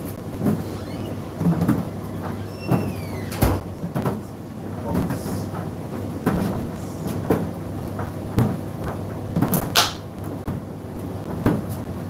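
Indesit IDC8T3 condenser tumble dryer running: a steady motor hum under irregular thuds of laundry tumbling in the drum, roughly one a second. A couple of sharp clicks cut through, one about three and a half seconds in and one near ten seconds.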